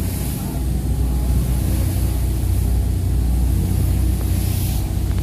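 A motor engine running steadily at an even pitch, with a steady high hiss over its low hum.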